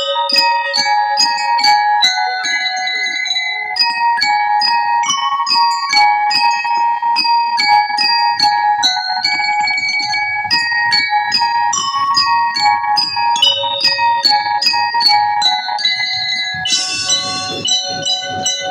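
Drum and lyre band playing a march: bell-lyres (glockenspiel-type metal bars struck with mallets) ring out a melody in a steady beat, with drums keeping time underneath. A bright crash sounds near the end.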